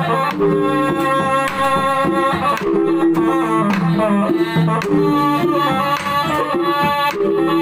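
Batak Toba gondang bolon ensemble playing: taganing tuned drums struck with sticks in a quick running pattern and ogung gongs beaten in a steady cycle, under a sustained, held melody line.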